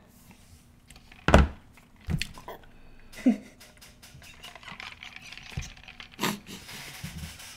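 Handling noises at a desk microphone: a sharp knock a little over a second in and a softer one at about two seconds, a brief vocal hum near three seconds, then soft sipping and swallowing from a drink can, with another knock past six seconds.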